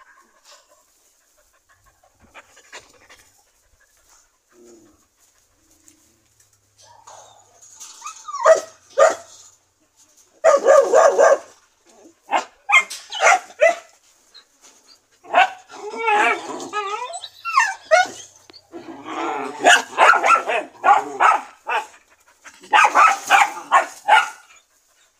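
A dog whining and yipping in repeated bursts, starting about a third of the way in, with its pitch sliding up and down.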